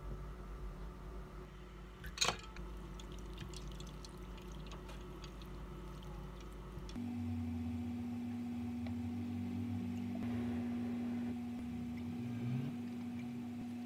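Boiled ramen noodles being poured off and drained in a stainless mesh strainer: water pouring and splashing, with a sharp clank about two seconds in. From about halfway a steady hum takes over.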